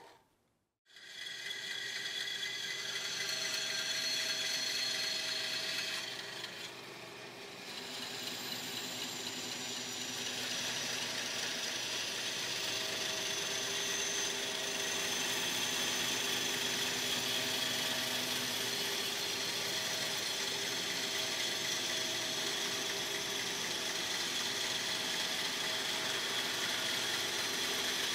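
Band saw running and cutting a metal plate, starting about a second in as a steady machine sound with a few held tones, dipping briefly in level around six to seven seconds in.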